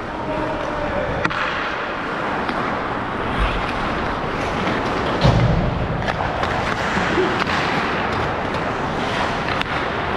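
Ice hockey in play: a steady hiss of skates on the ice and rink noise, with scattered sharp clicks of sticks and puck and a dull thump about five seconds in.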